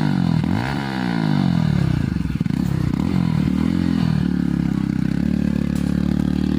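Bajaj Pulsar 160's single-cylinder engine running through a freshly fitted aftermarket exhaust. It is blipped up and down a few times, the pitch rising and falling, then settles to a steady idle about four seconds in.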